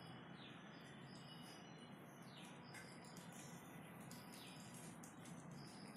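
Faint outdoor ambience: a bird gives a short falling whistle about every two seconds, over scattered high-pitched chirps and ticks and a low steady hum.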